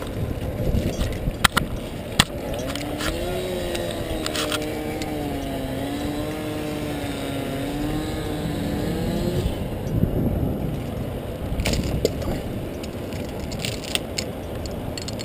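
Steady low rumble of a running crane engine, with sharp metallic clinks of a steel rigging chain being handled around the poplar trunk early on. From about three seconds in to about nine seconds, a wavering tone rises and falls over the rumble.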